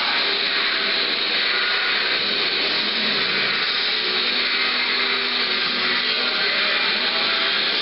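Loud music played through loudspeakers, heard as a dense, harsh, unbroken wash of sound with faint held notes beneath it.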